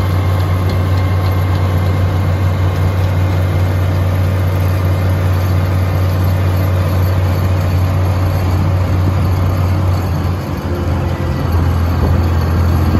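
Oliver 1750 tractor's engine running steadily at road speed, heard from on board as a loud, deep, even drone. It dips briefly about ten seconds in, then picks up again.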